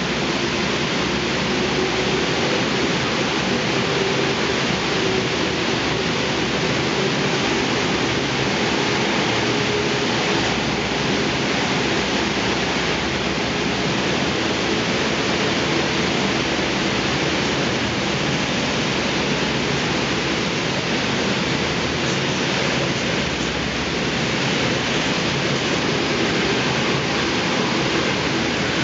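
UltraOxibar thermal lance (oxygen burning bar) burning as it cuts open the slag tap hole of a copper smelting furnace. It makes a steady, loud hiss, with a faint hum underneath in the first half.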